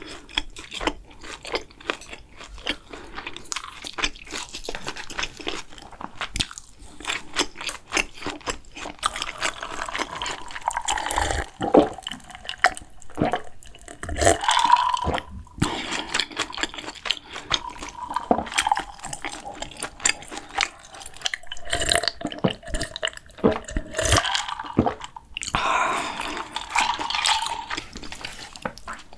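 Close-miked chewing and crunching of food, with many short clicks and a few wet, slurping moments.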